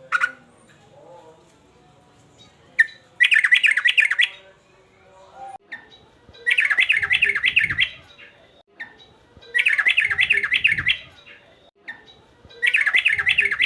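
Male yellow-vented bulbul singing in a worked-up state, with a short call or two and then four bursts of quick up-and-down notes, each about a second long and repeated about every three seconds.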